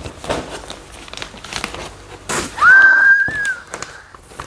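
Gift wrapping paper rustling and crinkling as a present is unwrapped. A little past halfway comes one high, steady, whistle-like tone lasting about a second.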